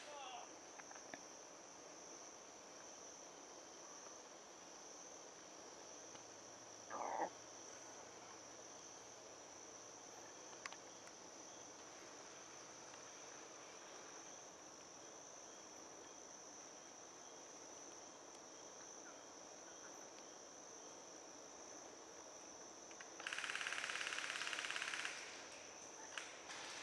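Faint, steady high-pitched drone of insects. About seven seconds in there is a short sliding chirp, and near the end a two-second burst of hiss.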